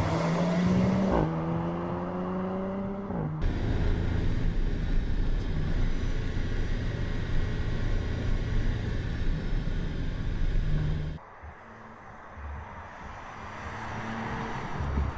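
Audi RS 4 Avant's twin-turbo V6 accelerating, its pitch rising steadily for a couple of seconds. About three seconds in it switches to a loud, steady rush of tyre and wind noise over the engine, heard from right beside the front wheel, and near the end it drops to a quieter, steady engine hum.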